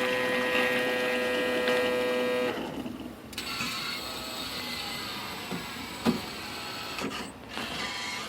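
Automatic coffee machine's motor running with a steady whine that stops about two and a half seconds in. After a short lull comes a quieter machine whir with a couple of small clicks.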